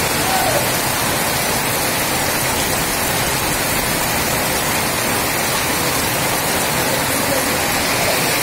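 Heavy rain pouring steadily onto a street and rooftops, a dense even hiss.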